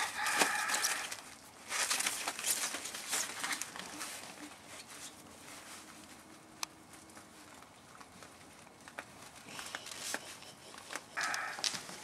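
Dobermann puppies scrambling in and out of a fabric play tunnel: crinkling rustle of the tunnel's fabric and scattered light clicks of paws on the patio. A rooster crows in the background right at the start.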